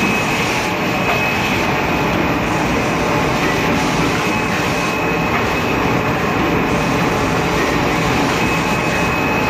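Automatic kitchen towel packing machine running: a loud, steady mechanical noise with a thin, steady high whine over it.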